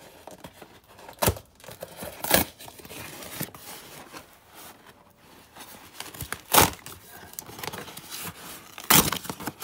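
A cardboard parcel being torn open by hand: four short, sharp rips of tape and card, the last two the loudest, between softer rustling and scraping of the box.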